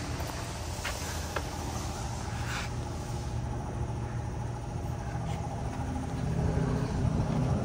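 Steady low mechanical rumble with a faint steady higher tone, growing a little louder near the end. A few light clicks and taps come in the first few seconds.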